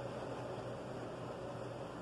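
Steady low hum and hiss of a car's cabin, the even noise of engine and road while riding.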